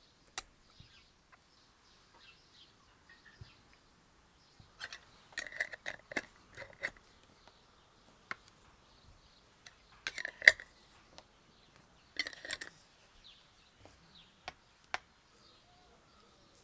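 Kitchenware clinking and knocking in three short bursts, with a brief ring after the clinks, and a few single ticks in between. Faint birds chirp in the background.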